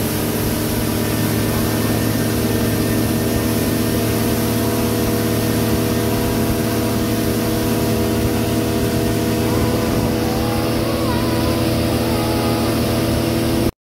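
A river passenger boat's motor running steadily at cruising speed, a constant drone with a steady rush of air and water over it.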